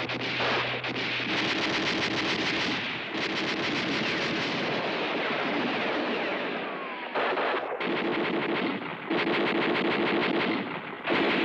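Machine-gun fire in several long, rapid bursts with short breaks between them, and a few falling whines near the middle.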